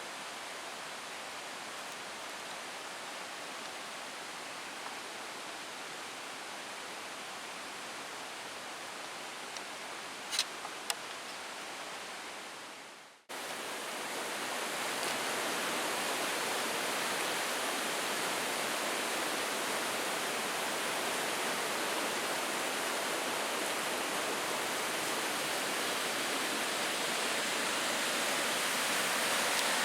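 Steady rush of stream water flowing through the gorge, with two short clicks about ten seconds in. The sound cuts out abruptly about 13 seconds in, then returns a little louder.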